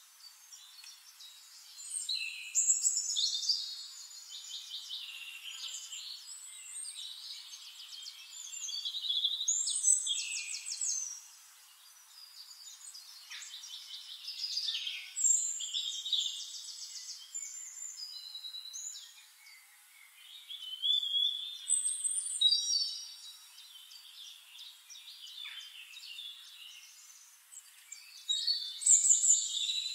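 Songbirds singing: quick high trills and whistled, chirping phrases that come in loud bursts every few seconds.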